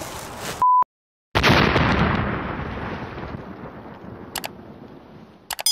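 A short steady beep, a moment of dead silence, then a sudden explosion-like boom sound effect that dies away over about three seconds, with a few sharp clicks near the end.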